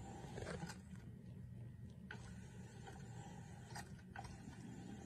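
Faint whir of a small electric cat toy's motor and gears swinging its wand, with several soft clicks along the way.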